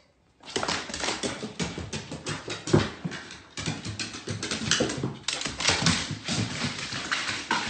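A bull terrier running down hardwood stairs, its claws and paws knocking rapidly and irregularly on the wooden steps.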